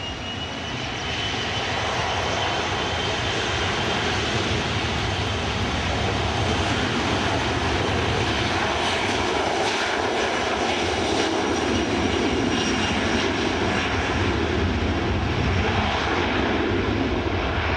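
Boeing 737 cargo jet's twin turbofan engines running at high power as the aircraft rolls along the runway, growing louder over the first two seconds. The sound is a steady high whine over a broad rumble and rush.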